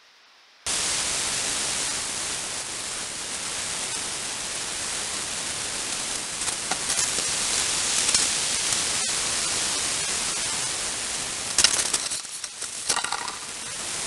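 Loud, steady hiss of a trail camera's microphone, starting suddenly about a second in. A few brief crackles and scrapes come near the middle and again near the end.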